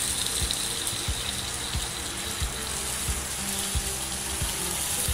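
A king prawn and chopped aromatics frying in hot oil in a small pan, a steady sizzle.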